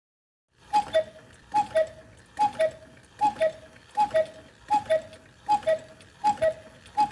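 Black Forest cuckoo clock movement calling cuckoo through its bellows and pipes: a higher note then a lower one, the pair repeated about every 0.8 s, nine times, starting about a second in.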